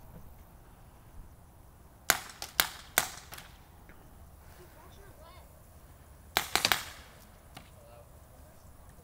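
Paintball markers firing in two quick volleys of about four sharp shots each, about two seconds in and again about six and a half seconds in.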